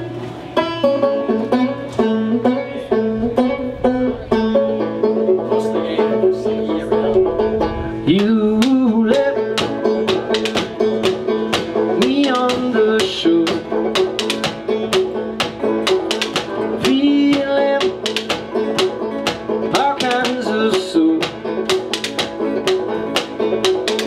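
A bluegrass-style string trio playing a tune: banjo picking and a resonator guitar played flat on the lap with sliding notes. From about eight seconds in, drumsticks click out a rhythm on a wooden percussion box.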